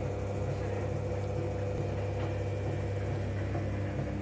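Electric potter's wheel running, a steady motor hum with several fixed tones, as the wheel head spins a small pot of wet clay being shaped by hand.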